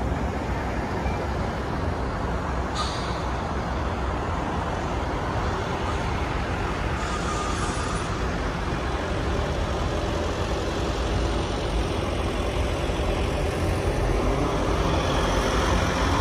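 Steady road and traffic noise from a car driving through city streets, with a deep rumble underneath. Two short hisses stand out, one about three seconds in and a longer one around seven seconds in, and the noise grows a little louder near the end.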